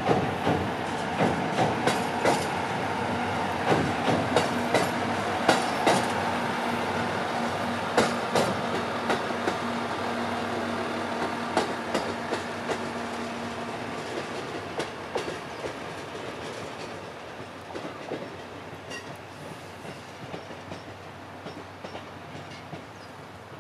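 JR East KiHa E130 diesel railcar passing and drawing away: its wheels clack over rail joints and a steel girder bridge while the diesel engine hums steadily, all fading as the train recedes. The clicks are densest in the first half, and the engine hum dies away about halfway through.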